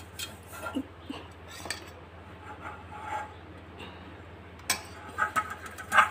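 Fingers rubbing ghee around the inside of a metal cake tin: soft scrapes and light clinks of the tin as it is handled, with a few sharper knocks near the end.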